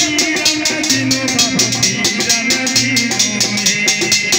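Folk music played live: a dholak drum beats a fast, even rhythm of sharp strokes over held harmonium notes, with a man singing.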